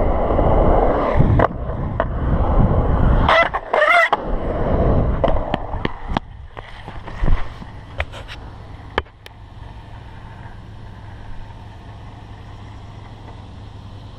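Skateboard wheels rolling over concrete with a loud rush of noise, a brief wavering tone about three and a half seconds in, then a series of sharp clacks and knocks as the board comes to a stop and the skater goes down. After that only a steady low hum and faint background remain.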